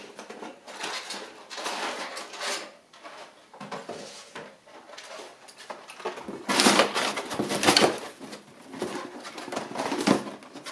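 Packaging being handled: crumpled packing paper and a cardboard box rustling and scraping in irregular bursts as a boxed model locomotive is lifted out, loudest about two-thirds of the way in. A plastic blister pack crinkles near the end.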